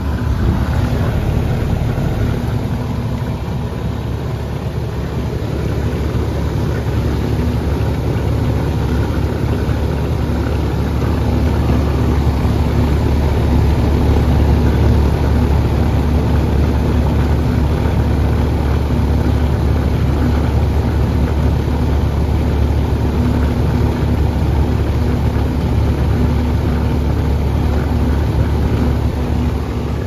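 Residential R-22 air-conditioning condensing unit running: a steady electrical hum from the compressor under the rush of air from the condenser fan.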